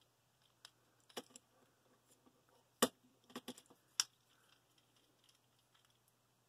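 Plastic parts of a Transformers War for Cybertron Springer action figure clicking and rattling as they are handled and pushed to peg together: a handful of separate sharp clicks, the loudest about three seconds in.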